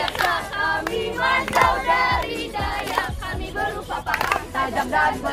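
Several voices singing together as a group, with a few sharp claps or knocks among them.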